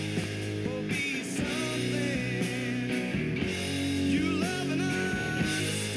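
Outro music: rock music with electric guitar.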